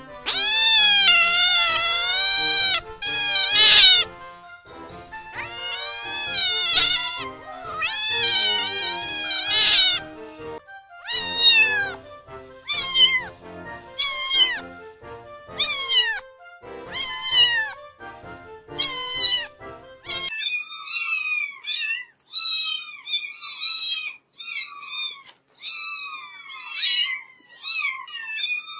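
Cats meowing. First come long, wavering drawn-out meows, then a run of separate meows about one a second. From about twenty seconds in, many short, high-pitched kitten mews overlap.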